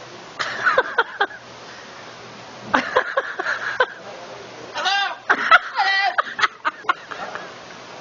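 Macaw making speech-like calls and squawks in three short bursts, the last with a rising and falling warble.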